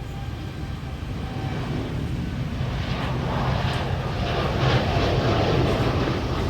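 Airliner's engines rumbling as it passes the airfield, the roar growing louder over the first few seconds.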